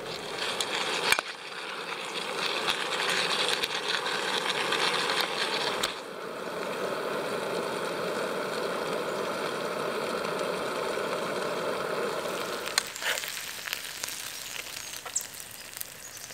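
Sliced potatoes, onions and Spam sizzling in a hot pan over a backpacking stove, with a sharp click about a second in. The sizzle drops much quieter a little before the end.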